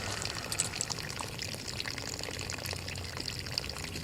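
Water pouring and trickling out of bullet holes in a water-filled barrel: a steady splashing with many small drips.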